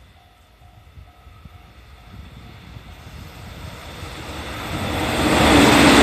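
Level-crossing alarm bell ringing about three times a second as a 313 series electric multiple unit approaches; the train's rumble and rushing grow steadily and drown out the bell, becoming loud as the train passes close by near the end.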